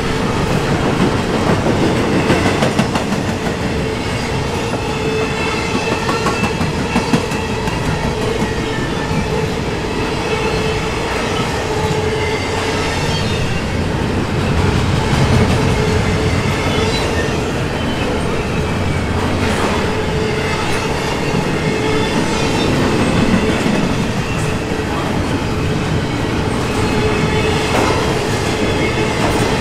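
Double-stack intermodal container well cars of a freight train rolling past at steady speed, their steel wheels clattering over the rail joints. A steady ringing tone runs under the rolling noise throughout.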